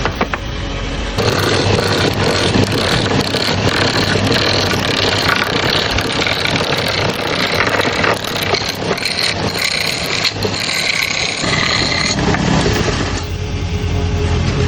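Electric woodworking power tools running, with a steady motor whine that shifts in pitch at several abrupt changes between short segments.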